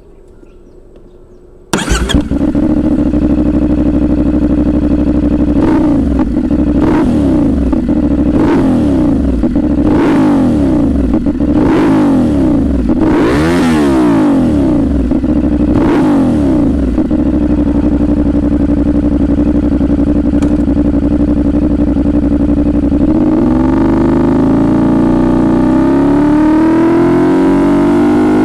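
CFMoto 450SR motorcycle's parallel-twin engine starting abruptly about two seconds in and settling into a steady idle, then revved in a series of about eight quick throttle blips. Near the end the engine speed climbs steadily and holds rising.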